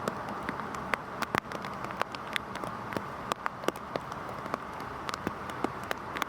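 Heavy rain falling steadily: a dense even hiss with many sharp, irregular drop impacts on a hard surface.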